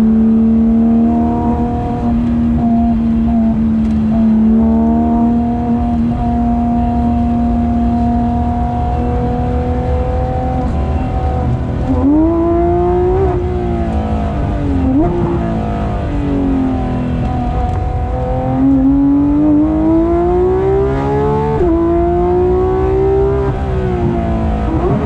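Porsche 991.2 GT3 RS's naturally aspirated flat-six under load, holding a steady, slowly rising pitch for about ten seconds. It then drops sharply and climbs again through a run of gear changes, falling back under braking and rising to an upshift near the end.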